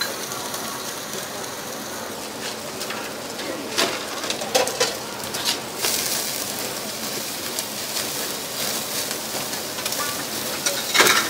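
Pork slices sizzling and crackling on a wire grill over a charcoal fire, with fat flaring in the flames. A few sharp clacks of metal tongs against the grate, the loudest a little before the end.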